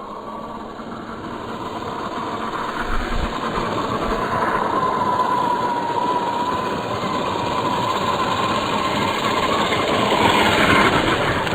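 WLtoys 12428 RC car's 540 electric motor and gearbox whining as it drives, the whine wavering in pitch with speed and the noise building steadily louder towards the end. The owner says the drivetrain is making an odd noise that calls for an overhaul.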